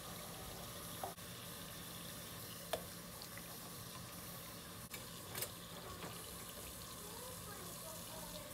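Kitchen faucet running steadily into the sink while dishes are rinsed and scrubbed, with a few light clinks of dishes and utensils.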